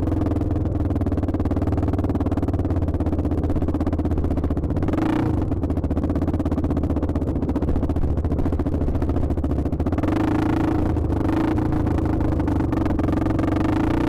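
Dirt bike engine running under throttle while riding, a steady note with brief revs about five seconds in and again around ten seconds in.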